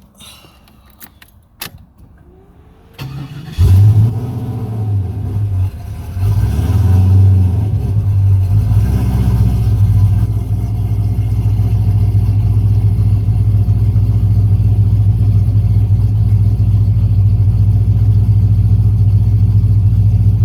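The LS V8 of a 1998–2002 F-body, newly running on a Holley Terminator X EFI, being started. A few sharp clicks come first, then brief cranking, and the engine catches with a loud burst about three and a half seconds in. The revs rise again around six seconds in, and it then settles into a steady idle: it fires right up and runs good on the new EFI.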